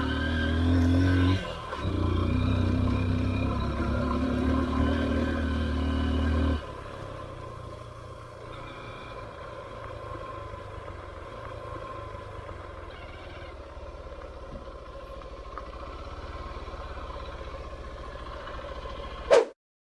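Honda XR150's single-cylinder four-stroke engine pulling hard up a steep dirt slope, with a brief drop about a second and a half in. From about six and a half seconds in it runs much quieter. A sharp loud knock comes near the end.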